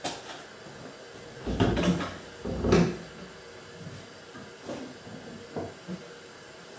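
A few dull clunks and knocks, the loudest about two and three seconds in, then a couple of fainter taps: workshop handling noise as light oil is fetched for the drill press parts.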